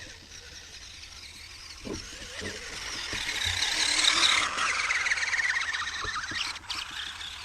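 Electric motor of an RC truck whining at high pitch under throttle, swelling over about four seconds and then easing off.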